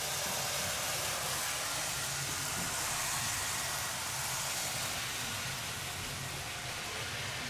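Model train running along its track: a steady low rumble under a constant hiss.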